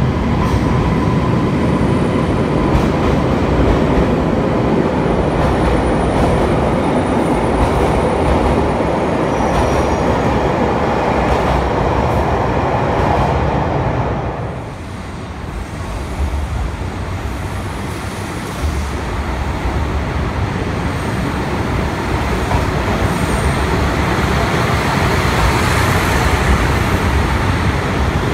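A commuter train moving past along a station platform, its wheels rumbling on the rails, loud and steady for about fourteen seconds. The noise drops briefly, then another steady train rumble builds toward the end.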